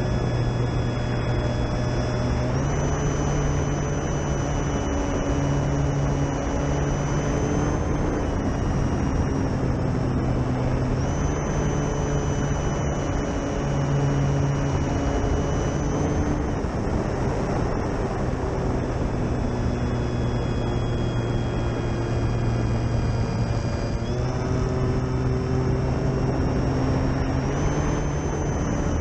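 Durafly Tundra RC plane's electric motor and propeller running in flight: a steady whine that steps up and down in pitch several times as the throttle is changed, over a constant rushing noise.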